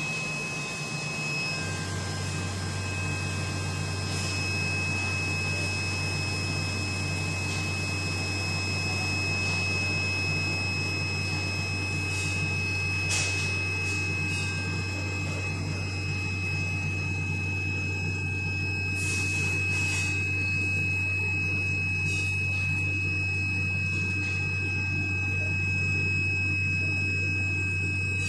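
Laser cutting machine running while it cuts an acrylic sheet: a steady low hum that comes in about two seconds in, under a constant high-pitched whine and machine hiss, with a few brief ticks.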